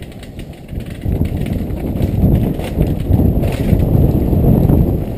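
Downhill mountain bike rattling and clattering over a rough, rocky dirt trail, picked up by a helmet-mounted camera, with a few sharper knocks; it gets louder about a second in.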